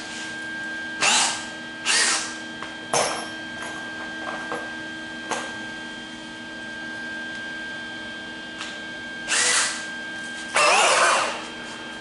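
Electric drill run in about five short bursts, cutting into the steel of an MGB door, with a pause of several seconds between the third and fourth burst; the last burst is the longest.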